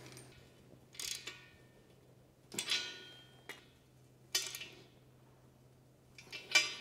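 Ratchet wrench tightening nuts down on concrete anchor bolts through a steel base plate: four short metallic clinks with ringing, about a second and a half apart.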